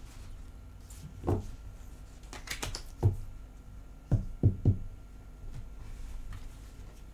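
Tarot cards being handled and set down on a tabletop: scattered soft knocks and taps, with three quick knocks about four seconds in.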